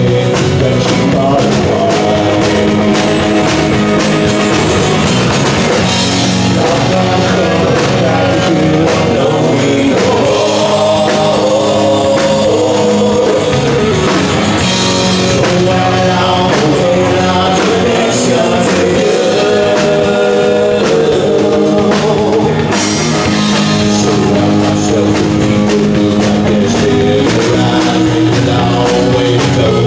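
Rock band playing a song: guitar and drum kit under a singer's voice, loud and steady.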